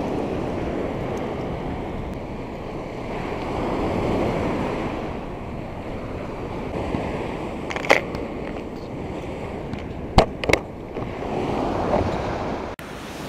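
Small surf breaking and washing up a sandy beach at the waterline, swelling and fading as the waves come in. A few short sharp clicks are heard about eight and ten seconds in.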